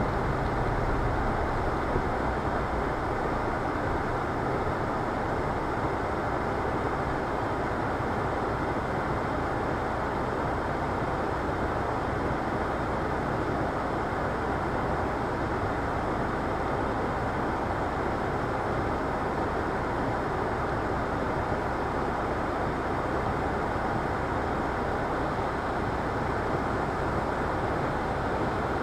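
Steady in-cabin vehicle noise picked up by a dashcam microphone: the vehicle slows to a stop and then sits running at a standstill, giving an even, dull noise with no clear changes.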